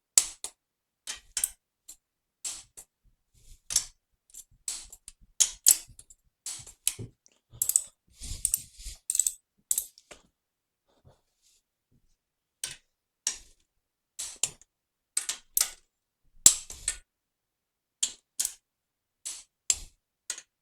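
Socket wrench on the cylinder head bolts, ratcheting in short irregular bursts of sharp clicks, with a pause of a couple of seconds about halfway through.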